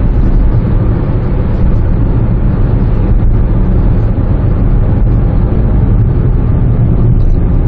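Steady in-cabin noise of a 2013 Chevrolet Spark cruising on the highway: a low, even engine drone mixed with road and tyre rumble.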